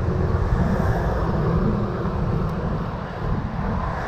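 Steady wind rumble on the microphone of a moving bicycle, with a fainter hiss of rushing air above it.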